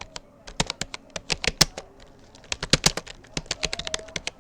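Rapoo computer keyboard being typed on at speed: quick runs of sharp keystroke clicks in an uneven rhythm, with a brief pause about two seconds in.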